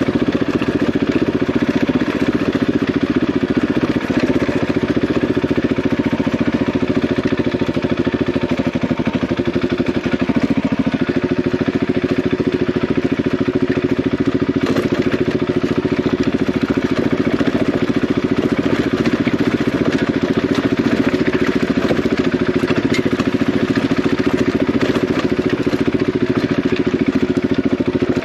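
Single-cylinder dual-sport motorcycle engine running steadily at an even, low engine speed, without clear revving.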